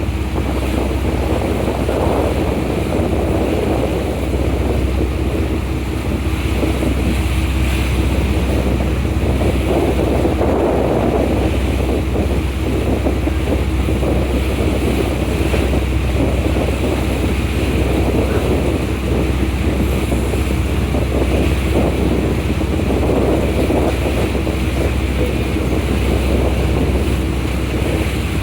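Ferry's engines droning steadily on board, with wind buffeting the microphone and water rushing past the hull.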